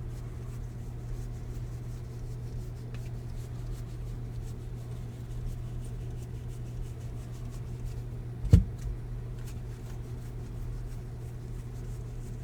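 Faint handling of baseball trading cards, light rubbing and small clicks as cards slide over one another, over a steady low hum. One sharp knock about two-thirds of the way through is the loudest sound.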